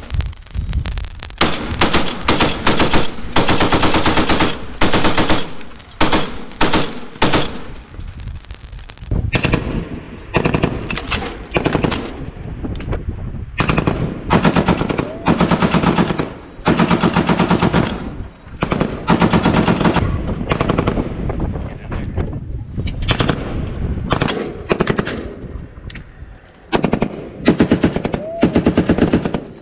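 Deck-mounted M2 Browning .50-calibre heavy machine gun firing long bursts of rapid shots, broken by short pauses.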